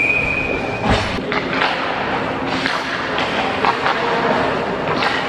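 Hockey rink on-ice sounds: skate blades scraping the ice and sticks and pucks knocking, in an echoing arena. A short steady high tone sounds at the very start, and a heavy knock comes about a second in.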